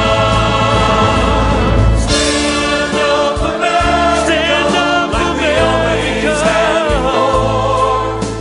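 Gospel-style patriotic song: voices singing long held notes with vibrato over a band with a steady bass line.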